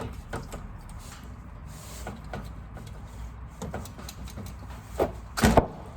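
Scattered clicks and knocks of a stuck oil filter being worked loose with a filter wrench, ending in two louder knocks near the end.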